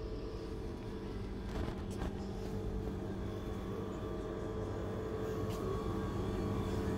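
Steady electrical hum of shop refrigeration (chest freezer and open chilled display cabinets), with a few faint clicks.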